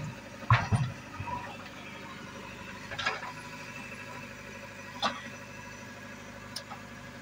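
JCB 3DX backhoe loader's diesel engine running steadily, with a heavy thud of wet mud dropping into a trolley about half a second in. Two sharp metallic clanks follow, about two seconds apart, from the backhoe arm and bucket.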